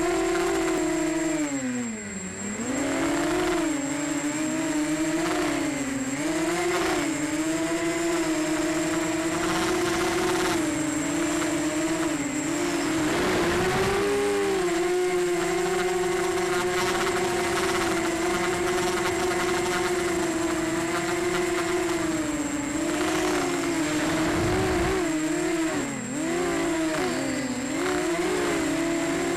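Emax Nighthawk 280 Pro FPV quadcopter's brushless motors and propellers whining in flight, the pitch rising and falling with the throttle and dropping sharply about two seconds in and again near the end. A thin steady high tone runs underneath.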